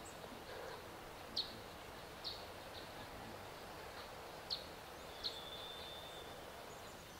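A bird calling: a few short, high chirps spaced a second or more apart, and one held whistle about five seconds in, over a faint steady hiss of outdoor ambience.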